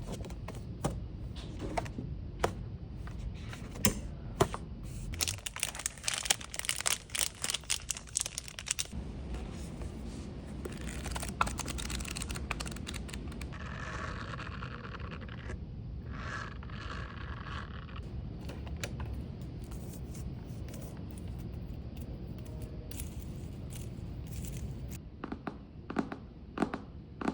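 Close-up handling of paper and small shop items: taps and clicks, crinkling and tearing paper, and a quick run of rustling about five seconds in. Near the middle comes a steady rasp in two stretches with a short break between.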